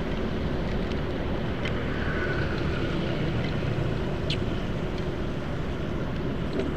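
Steady riding noise from inside a full-face helmet: wind rush and tyre hiss on a wet road over the low running of a Honda Vario 125 scooter's single-cylinder engine.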